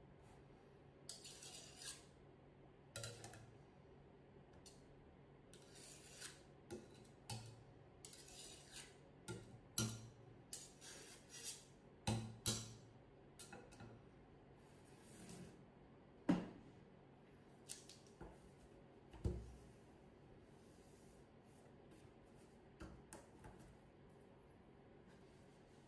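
Spatula and palette knife scraping and tapping against a glass mixing bowl and a metal cake ring as cheesecake filling is spread: a string of light scrapes and clicks, thinning out after about twenty seconds.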